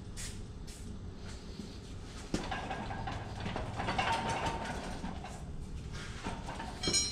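Metal scraping and rattling as the steering rod of a John Deere 175 riding mower is worked down and out of its steering column, with a sharp click about two seconds in and a short ringing metal clink near the end.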